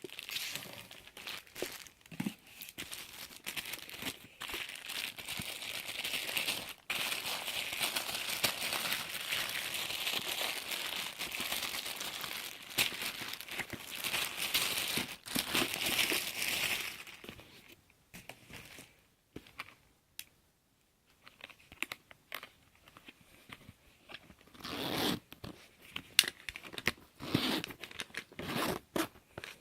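Packaging being handled during an unboxing: a long stretch of crinkling and tearing for about the first seventeen seconds, then quieter, scattered rustles and taps.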